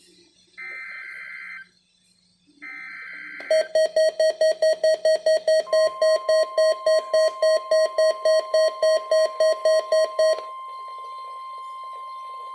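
Two NOAA Weather Radio SAME header bursts, short raspy digital data screeches of about a second each, mark the start of a Required Weekly Test. They are followed by an electronic alert beeper pulsing rapidly, about four beeps a second for about seven seconds. A faint steady tone is left after the beeping.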